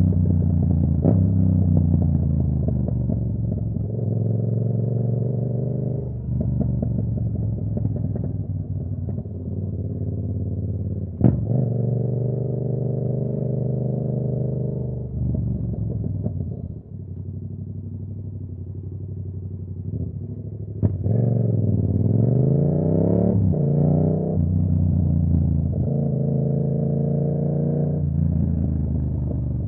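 Yamaha R7's parallel-twin engine through a Ko Lightning exhaust while riding, its note climbing and dropping repeatedly as the revs change. Sharp clicks come about eleven and twenty-one seconds in.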